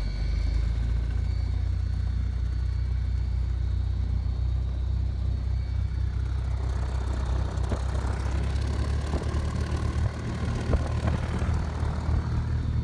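Mooney M20J's four-cylinder Lycoming piston engine running at low power, a steady low drone. About six and a half seconds in, a broader rushing noise rises over it.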